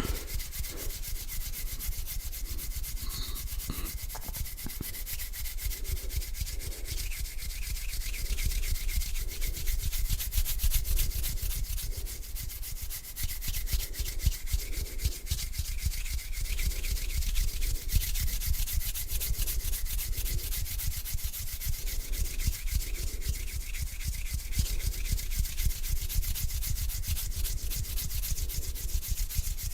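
Hands rubbing together palm on palm: a continuous dry, swishing skin-on-skin friction in slow, steady strokes, about one a second.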